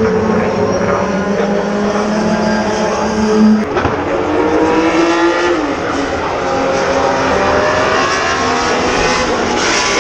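Historic race car engines on the circuit, several cars at once. A steady engine note cuts off with a sharp crack about three and a half seconds in, then engine notes rise and fall as cars accelerate and pass.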